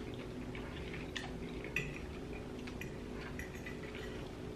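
Forks clinking lightly against dinner plates as two people eat, a few faint scattered clicks over a low steady room hum.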